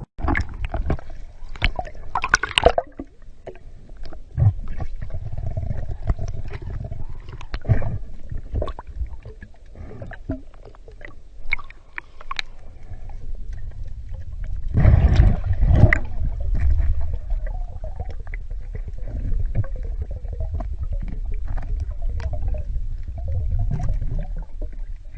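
Underwater sound of a diver in a river: a low rumble of moving water with gurgling, many scattered small clicks and knocks, and a louder gurgling stretch about fifteen seconds in.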